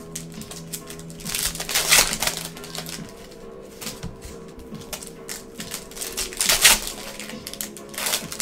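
Foil trading-card pack wrappers crinkling and tearing open in gloved hands, in rustling bursts, the loudest about two seconds in and again past six seconds.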